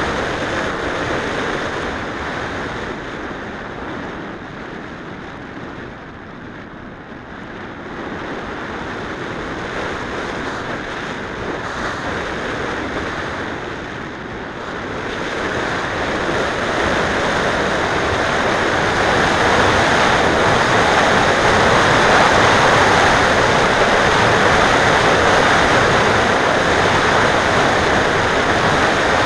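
Wind rushing over the microphone of a small onboard camera on an unpowered Mijet slope-soaring glider in flight: a steady airflow hiss that fades down a little way in, then swells louder from about halfway through.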